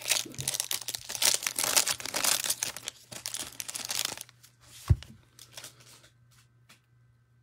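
Plastic shrink wrap crinkling and tearing as it is pulled off a trading-card hanger box. A single thump about five seconds in, then a few light taps.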